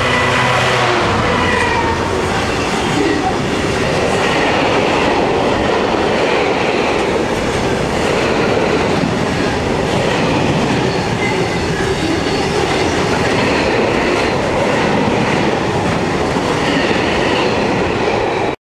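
Class 66 diesel freight locomotive's two-stroke EMD engine passing close by in about the first second. A long rake of covered freight wagons follows, their wheels rumbling and rattling loudly along the track. The sound cuts off abruptly near the end.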